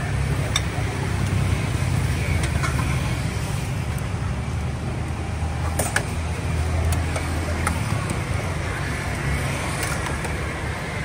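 Steady low rumble of street traffic, with a few light metallic clinks of tongs and ladle against the steel soup pot and bowls.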